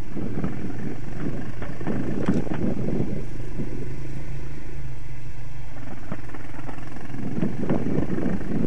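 Honda XR250 single-cylinder four-stroke trail bike running at a steady speed, with an even engine note and irregular crackling noise over it.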